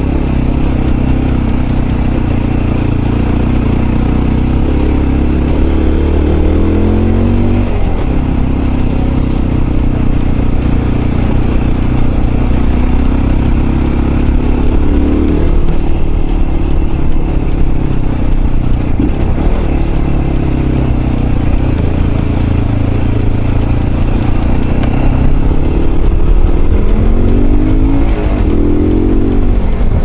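Mondial RX3i Evo's 250 cc single-cylinder engine running under way on a dirt road, with road and wind noise. The revs climb and fall back three times, about 7, 15 and 28 seconds in.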